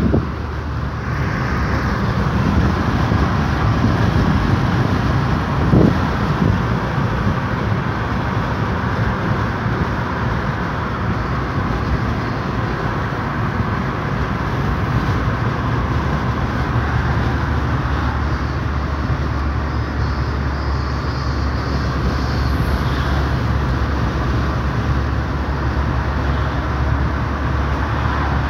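Steady road and engine noise of a moving car, heard inside the cabin, with a brief thump about six seconds in.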